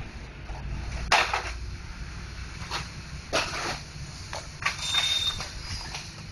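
Irregular plastic clicks and knocks from parts of a Brother MFC-J615W inkjet printer being handled during disassembly, the loudest about a second in, over a low steady hum.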